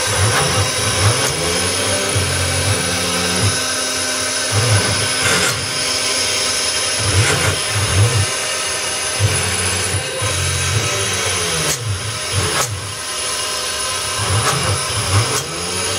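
Wood-cutting CNC router at work: the high-speed spindle runs steadily as its bit mills grooves in a wooden board. Under it, the gantry's stepper motors hum in low tones that rise and fall in pitch every second or two as the axes speed up, slow and change direction.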